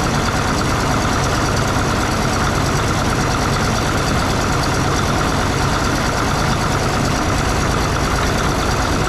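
Cat D6 bulldozer's diesel engine idling steadily.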